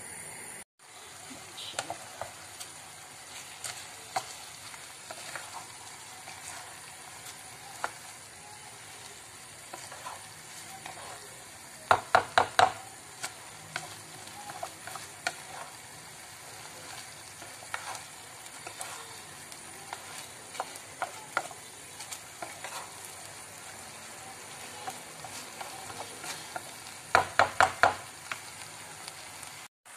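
Wooden spatula stirring and scraping chicken and rice in a frying pan over the flame, with a steady sizzle and scattered clicks. Twice, about twelve seconds in and again near the end, a quick run of loud knocks as the spatula strikes the pan.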